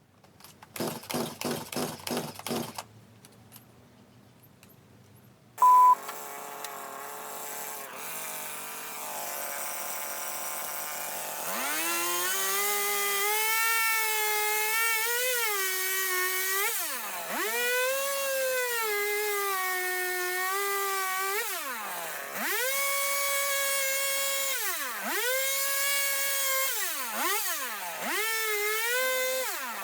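A gas chainsaw being pull-started, with a quick run of rattling pulls, then catching and idling about six seconds in, just after a short sharp beep. From about eleven seconds it is revved hard over and over, its pitch dropping each time the throttle is let off and climbing back.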